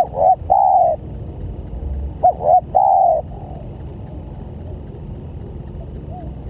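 Spotted dove cooing: two loud phrases about two seconds apart, each of a couple of short notes and a longer drawn-out final coo. Fainter coos come in the background over a steady low rumble.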